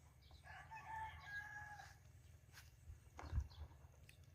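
A rooster crowing faintly, one drawn-out call of about a second and a half, followed about three seconds in by a short low thump.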